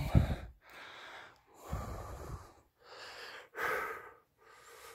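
A person breathing heavily close to the microphone: a run of short in-and-out breaths, about one a second.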